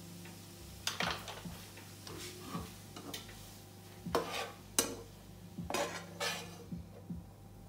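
A spoon scraping and clinking against a cooking pot as fried vegetables are scooped in: a string of irregular scrapes and knocks, the loudest from about four to six seconds in.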